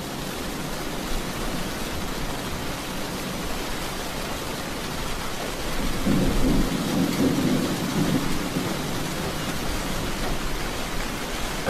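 Steady rain falling, an even hiss. About halfway through, a low rumble swells for a couple of seconds and then eases back.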